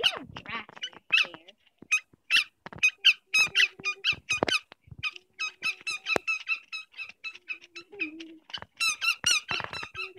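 Squeaky toy ball squeezed over and over in quick runs of short, high squeaks, thinning out for a couple of seconds past the middle.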